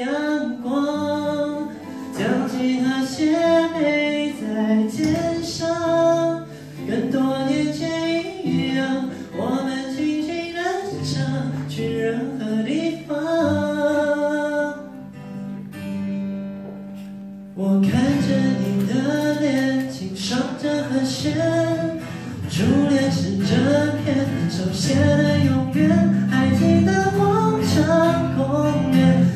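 A man singing a Mandarin pop ballad into a microphone, accompanied by a strummed and picked acoustic guitar. About 15 s in the music drops to a quieter passage, then the voice and guitar come back louder about 18 s in.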